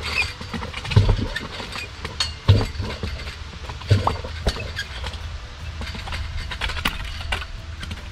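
A sludge bailer on a rope through a pulley on a wooden tripod, dropped down a 160 mm plastic well pipe to bail out the bore: three dull thumps about a second and a half apart in the first half, with clicks and rattles of rope, pulley and metal, then lighter rattling as the bailer is hauled up. A steady low hum runs underneath.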